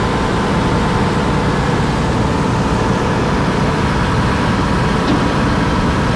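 Motor boat under way, its engine running with a steady drone.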